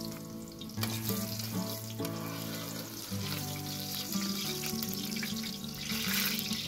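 Eggplant slices sizzling in hot oil in a wide frying pan, a steady hiss that grows stronger near the end. Background music with long held notes plays over it.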